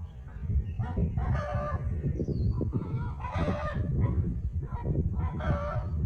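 Chickens clucking, a short call every second or so, over a steady low rumble.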